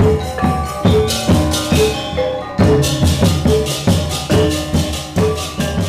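Balinese gamelan gong ensemble playing an instrumental tabuh petegak: bronze metallophones and kettle gongs strike a steady pulse of ringing notes over drum strokes. A brighter, hissing shimmer joins about two and a half seconds in.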